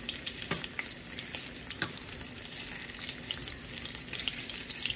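Sausage links frying in oil in a stainless steel skillet: a steady sizzle with scattered crackling pops.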